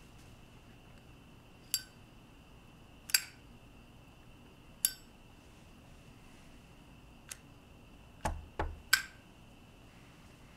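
Sharp metallic clinks with a bright ring, three of them about a second and a half apart. After a faint click come two dull knocks close together near the end, then one more clink.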